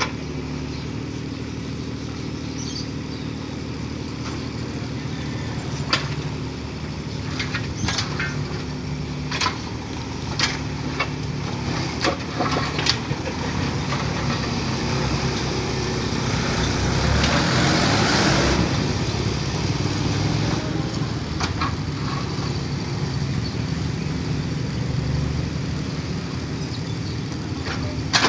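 Backhoe engine running steadily, with several sharp knocks in the first half and a louder, hissing swell a little past halfway.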